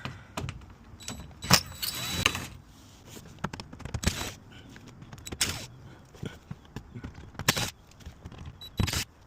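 Irregular metallic clicks and light rattles, several sharp ones a second or two apart, from Torx screws and a driver being handled while the screws holding the plastic engine undertray are taken out.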